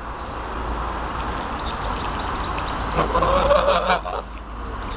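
Geese giving one call of about a second, about three seconds in, over a steady low background rumble.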